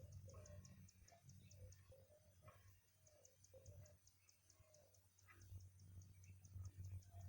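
Near silence: faint outdoor ambience with a fast, even, high ticking of about six a second over a low rumble.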